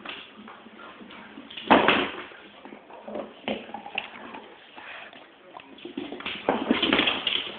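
A phone being handled close up and moved around: scattered knocks and rubbing, a loud bump about two seconds in, and a louder stretch of close rustling near the end as it is pushed up against the dog.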